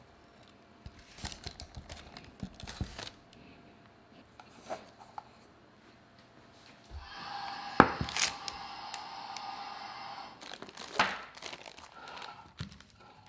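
Parchment paper crinkling and rustling as a baked brownie is lifted out of a square metal pan by its paper lining. Before that comes a steady hum lasting a few seconds, with a couple of sharp knocks.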